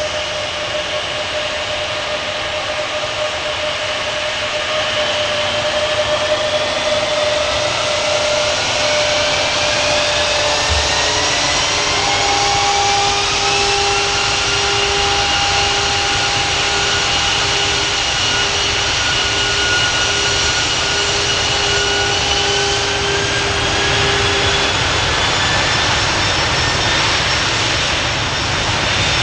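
Kawasaki P-1 patrol aircraft's four IHI F7 turbofan engines running as it taxis, a steady jet whine that rises in pitch about a third of the way in and again later as thrust is added.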